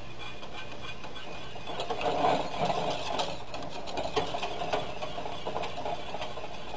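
A spoon stirring gravy quickly in a stainless steel saucepan, a fast rhythmic scraping and clicking against the pan.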